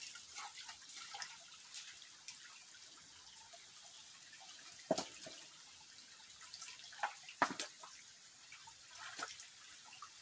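Shallow rocky stream trickling and dripping, faint and steady, with a few sharp knocks and clicks scattered through, the loudest about five and seven and a half seconds in.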